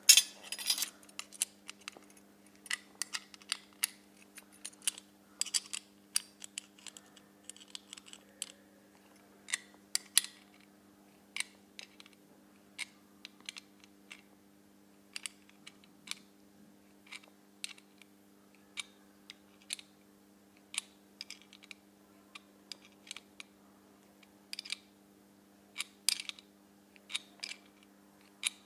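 Metal hand tool clicking against a bolt and bracket as a monitor arm mount is slowly tightened by hand: sharp, irregular clicks, one or two a second, over a steady low hum.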